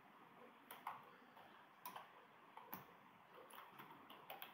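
Faint computer keyboard keystrokes: a handful of scattered, irregular taps over a low hiss as a name is typed in.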